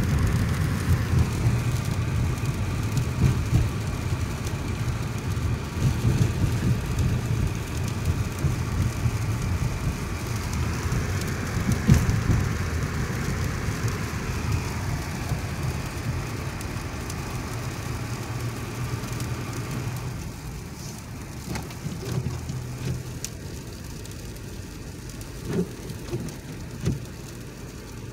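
Sleet falling on snow-covered ground and surfaces: a steady hiss over a low rumble. About twenty seconds in it becomes quieter, and a few short thumps come near the end.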